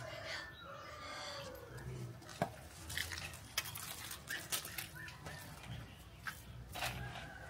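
A drawn-out animal call falling in pitch, then footsteps crunching and clicking irregularly over dry leaves and wood scraps from a couple of seconds in.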